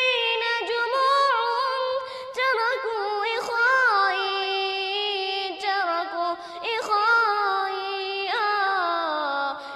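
A solo voice singing a nasheed, long held notes with melodic ornaments and a step down in pitch near the end.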